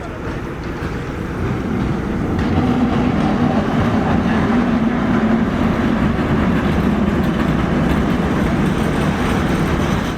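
Train running on rails: a loud, steady rumble with a faint hum, building over the first couple of seconds and then holding level.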